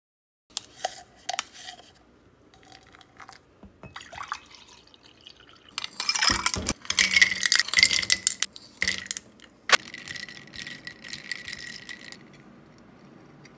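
Ice and glass clinking in a drinking glass, then liquid poured into the glass over ice for several seconds, with one sharp glass clink partway through.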